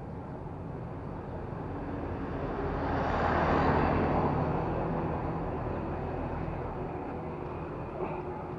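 A motor vehicle passing on the street over steady traffic noise, growing louder to a peak about three and a half seconds in and then slowly fading.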